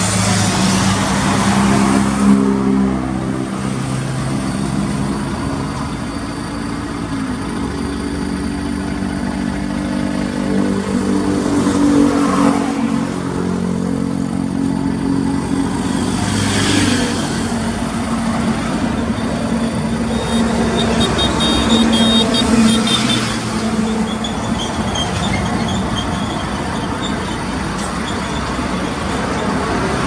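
Heavy diesel truck engine running under way, its pitch rising and falling as it pulls, with other traffic passing close by several times.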